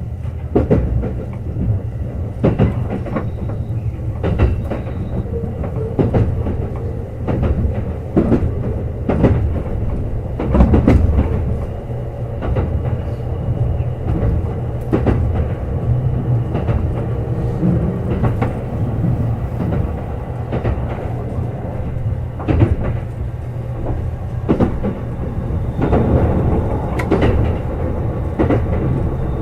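Kintetsu 21000-series Urban Liner Plus express train running: a steady low rumble of wheels on the track, broken by irregular sharp clacks over rail joints.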